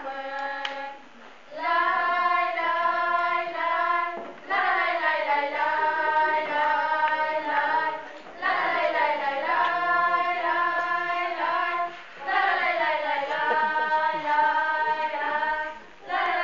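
A small group of girls singing together, unaccompanied, in phrases of about four seconds with short breaks between.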